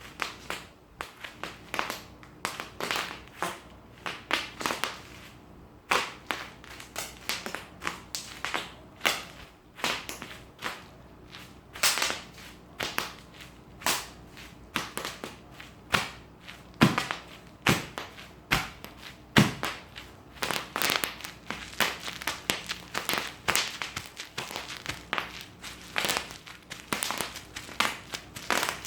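Bubble wrap being popped: an irregular string of sharp pops, a few each second, with crinkling of the plastic between them.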